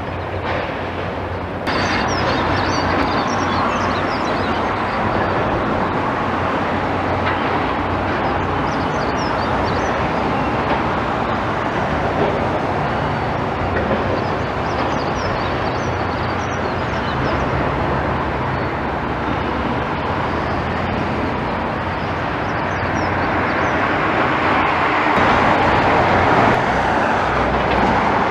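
Steady rumble and running noise of a moving vehicle, stepping up in loudness about two seconds in.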